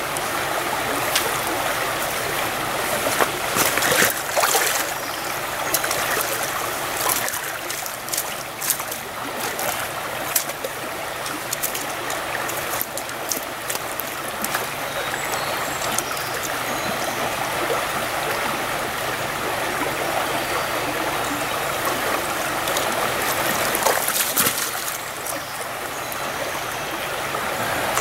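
A river running high and fast over a riffle makes a steady rushing of water. A few short, sharp sounds close by cut in a few seconds in and again near the end.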